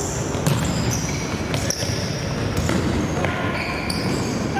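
Sports-hall sounds of a futsal game in play: players' shoes squeaking repeatedly on the hall floor, with a few sharp knocks of the ball being struck, over a constant echoing hall background.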